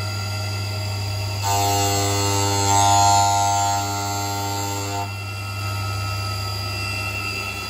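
Syil X7 CNC mill spindle running with a steady hum. From about a second and a half in until about five seconds, the face mill bites across the top of an aluminium standoff with a ringing cutting whine that is loudest near the middle. The mill is facing the standoffs to an exact height.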